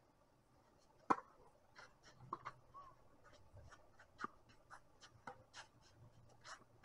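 Tennis serve hit with a Diadem Nova FS 100 racket, a single sharp pock about a second in. A rally follows, with a string of fainter pocks of ball strikes and bounces from both ends of the court, about every half second.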